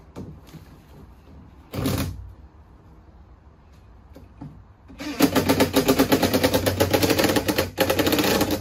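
Cordless drill driving a screw through a scrap-wood strip into a floor joist: a short burst of driving about two seconds in, then a longer run of rapid, machine-gun-like hammering for about three seconds, with a brief break near the end as the screw goes home.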